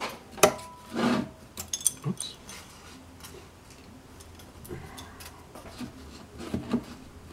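Hands working on a wooden workbench: a few sharp knocks and taps as pieces and tools are picked up, set down and slid, clustered in the first two seconds and again late on, with quiet handling between.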